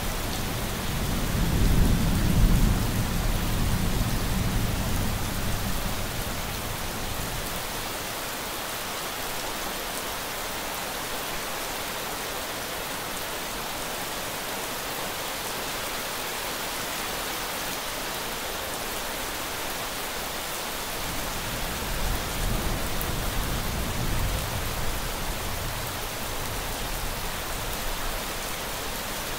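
Steady rain with thunder: a low rumble is loudest about two seconds in and dies away over the next few seconds, and a softer rumble returns about three quarters of the way through.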